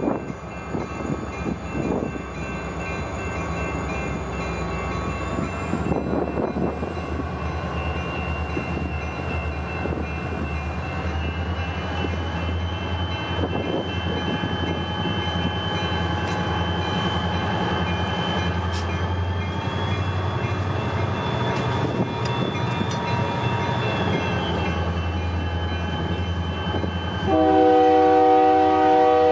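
A pair of EMD SD40-2 diesel locomotives, turbocharged 16-cylinder EMD 645 engines, running with a steady low drone. Their whine climbs in pitch twice as they load up to start the train, then eases down. Near the end the lead unit's air horn sounds one loud, steady blast.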